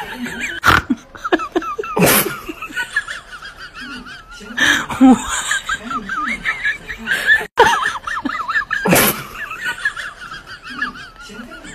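Human laughter: a high, wavering laugh runs through most of the stretch, broken by several abrupt jolts and one brief dropout.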